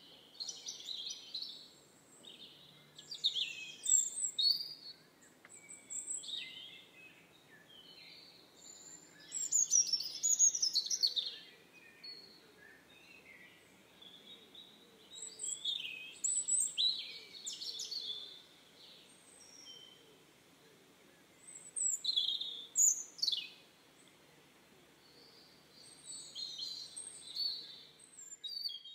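Songbirds singing in phrases every few seconds, high chirps, trills and quick falling notes, over a faint steady background.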